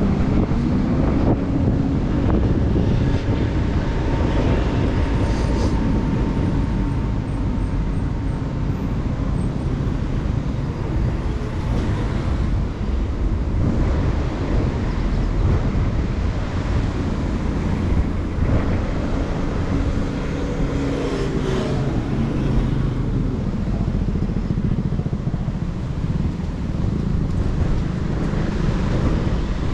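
Street traffic on a city boulevard: cars driving past over a steady low rumble, with a couple of vehicles passing by near the start and again past the middle.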